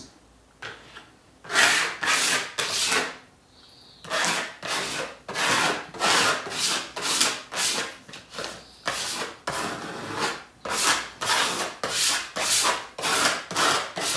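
Sponge rubbing paint across a textured painted board in repeated scrubbing strokes, about one or two a second, after a brief pause at the start.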